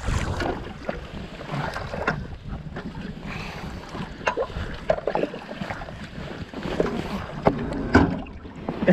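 Lake water sloshing and splashing around a wading angler as a metal fishing ladder with a seat is lifted and handled, with irregular knocks of the gear; the loudest knock comes about eight seconds in. Wind buffets the microphone.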